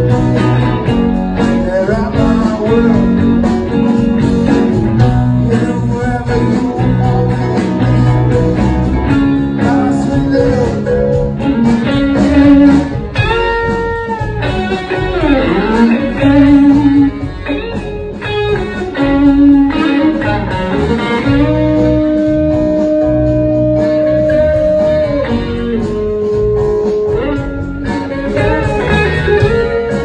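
Live blues band playing, with guitars to the fore; notes slide and bend in the middle and are held long a little later.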